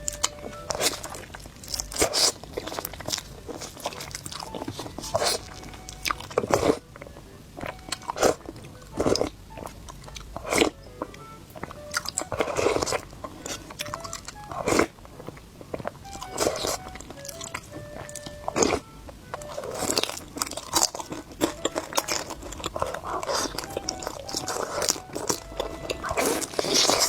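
A person eating crunchy food: repeated crisp bites and crunching chews at an irregular pace, over background music.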